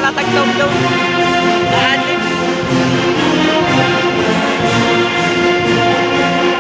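A large brass band of brass and woodwinds with bass drum playing a march, holding full sustained chords.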